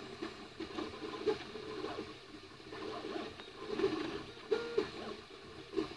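Flashforge Creator 3D printer running a print: its stepper motors whine in short tones that jump up and down in pitch as the print head moves, over the steady hiss of its cooling fans.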